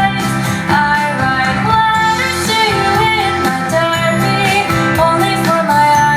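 Pop song's instrumental passage with guitar carrying the melody over a steady backing, played through Samsung PS 460E three-way bass-reflex bookshelf speakers.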